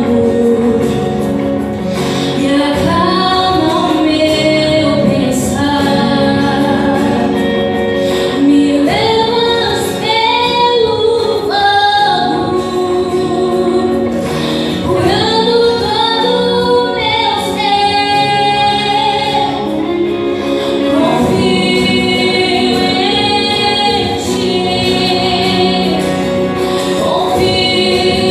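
Young female vocalist singing a Brazilian Portuguese gospel worship song, with long held and gliding notes, over sustained instrumental accompaniment.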